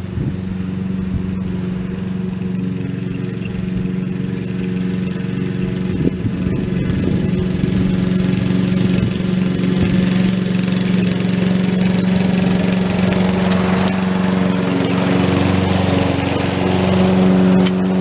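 Lawn mower engine running steadily at one speed, growing louder and rougher about halfway through as it cuts grass.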